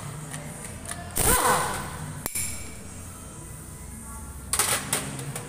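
An impact wrench runs in one short burst about a second in, its pitch sliding down and back up. Near the end come a few sharp metallic clinks, like parts and tools set into a metal tray.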